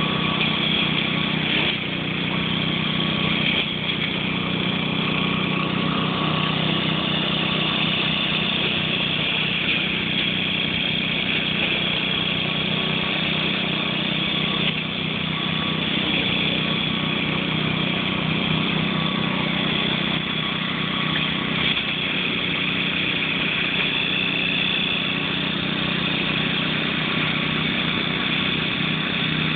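1966 Gravely walk-behind mower's engine running steadily.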